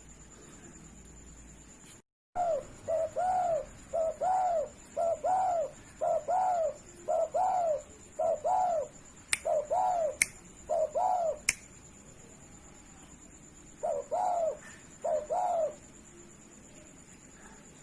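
Spotted dove cooing: a long run of repeated, arched coos, then a pause and a few more coos near the end. Three sharp clicks sound in the middle of the run.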